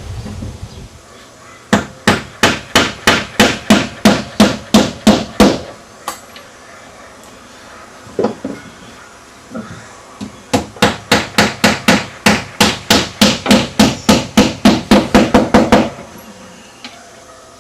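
Hammer blows in two quick, steady runs: about four strikes a second for a few seconds, two single strikes, then a longer, faster run of about five strikes a second that stops suddenly.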